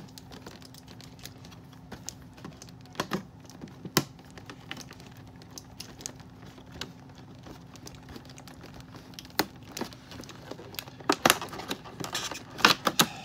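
Hands working on plastic doll packaging: crinkling with scattered sharp clicks and snaps, a few louder ones about three and four seconds in and a cluster near the end.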